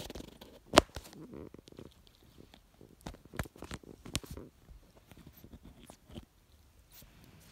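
A kitten's paws and fur bumping and rubbing against the phone's microphone: scattered knocks and scuffs, with the loudest knock about a second in and a cluster around the middle.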